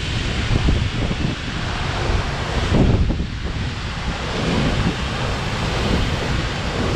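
Steady roar of Havasu Falls' falling water, with wind and mist buffeting the microphone and a stronger gust about three seconds in.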